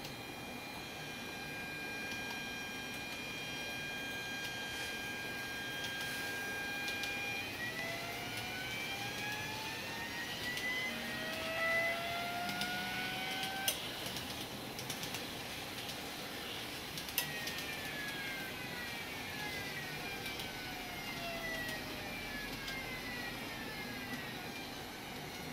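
N gauge model train motor singing an imitation VVVF inverter sound, made by a homemade microcontroller PWM controller without modifying the motor: several steady tones at first, then tones climbing in pitch as the train accelerates, and later gliding down in pitch as it slows. Two sharp clicks fall in the middle.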